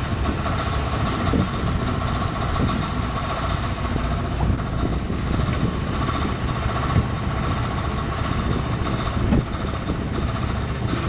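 A boat's engine running steadily, with a couple of brief light knocks.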